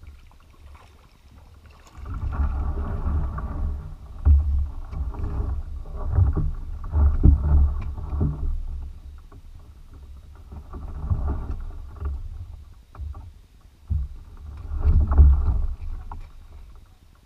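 Plastic kayak hull scraping and grinding over gravel and a shallow river bottom as the boat runs aground, in three rough bursts with scattered knocks, after about two quieter seconds.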